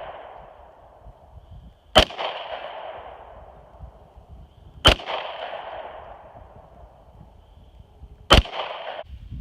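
Glock 43 9mm pistol fired three times, about three seconds apart, each shot followed by a long echo that dies away.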